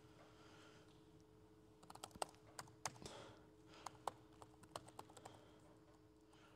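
Faint typing on a computer keyboard: scattered, irregular key clicks from about two seconds in, over a steady low hum.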